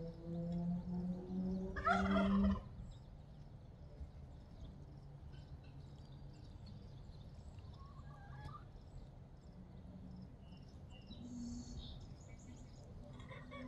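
Domestic geese calling: low murmuring grunts, then one loud honk about two seconds in, followed by softer scattered calls and faint high chirps.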